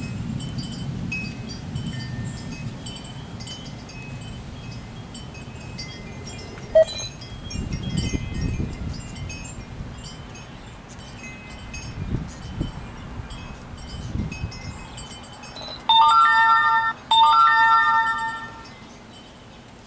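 Porch wind chimes tinkling on and off in gusty storm wind, with low rumbling now and then. Near the end two loud, steady, held tones of about a second each ring out back to back, the loudest sound here.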